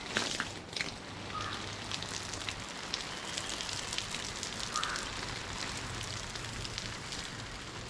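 Water from a garden hose spraying onto leaves and plants. It makes a steady hiss with many small crackling drop hits.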